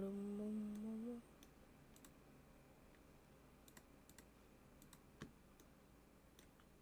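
Faint, scattered clicks of a computer mouse and keyboard, about a dozen spread over several seconds. For about the first second a person hums a long, steady note.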